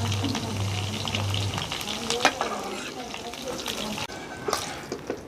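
Okra frying in hot oil in a kadai, a steady sizzle, with a spoon scraping and clinking against the pan as the fried okra is taken out. The sizzle thins out near the end.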